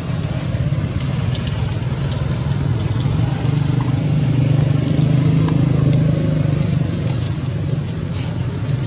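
A motor vehicle's engine running nearby as a steady low hum, growing louder about halfway through and easing off again, like a vehicle passing.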